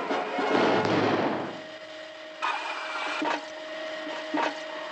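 Cartoon suction sound effects of a vacuum gun. A loud rushing whoosh dies away over the first second and a half, then gives way to a softer machine whir with a steady hum. The whir swells for a moment near the middle, and short zips come about three and four and a half seconds in.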